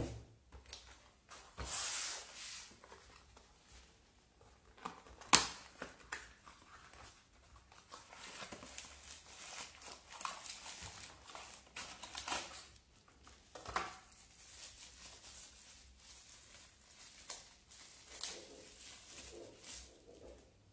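Unboxing sounds: a cardboard box, a foam packing block and plastic-wrapped cables being handled and set down on a table, with scattered rustling and crinkling and one sharp knock about five seconds in.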